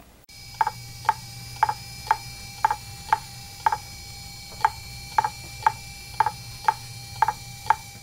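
Fujitsu MHK2048AT 2.5-inch laptop hard drive clicking about twice a second over a faint steady whine. This is the repeating head click typical of a failing drive.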